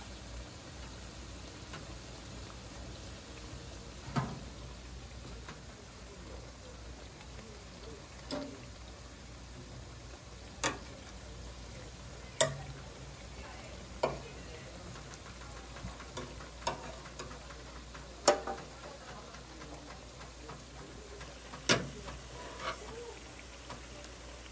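Twisted glutinous-rice doughnuts (chapssal kkwabaegi) deep-frying in a fryer of hot oil, a steady sizzle. About ten sharp clicks break in every couple of seconds from metal tongs turning the doughnuts in the steel fryer.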